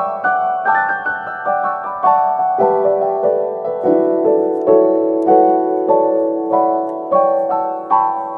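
Background music: a gentle solo piano piece, notes struck in a quick, even run over a held lower note.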